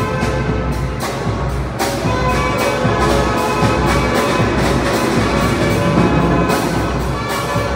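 Tamborazo brass band playing: trumpets and trombones holding a melody over a steady bass-drum and snare beat.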